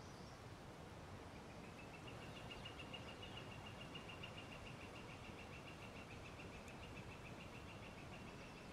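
A faint, high trilling call: a long run of quick, evenly spaced notes that starts about a second and a half in and holds steady to the end, over faint outdoor background hiss.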